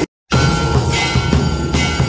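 Temple aarti percussion: a large double-headed drum beaten steadily with two sticks, with a clashing brass cymbal and ringing brass bells over it. It cuts in after a split-second gap at the start.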